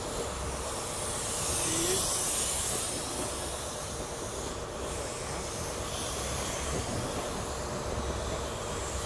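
Steady rumble and hiss of a train running on the line, with a swell of high hiss about two seconds in.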